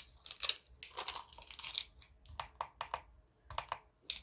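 Adhesive tape pressed into a plastic mixing cup and peeled away, picking up leftover shards of cured resin: irregular crinkling and crackling, with a brief pause about three seconds in.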